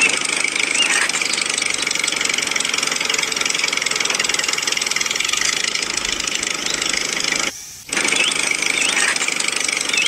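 Tractor engine sound running steadily. It drops out sharply for a moment about seven and a half seconds in, then carries on.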